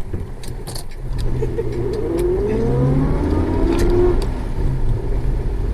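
Car engine and road noise heard from inside the cabin while driving; the engine pulls harder from about a second in, its note rising in pitch around two to three seconds in.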